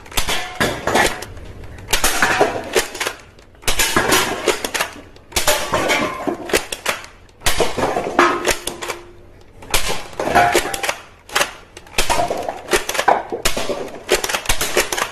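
Hard plastic toy guns clattering and clicking as they are handled, in short bursts of rattling every one to two seconds.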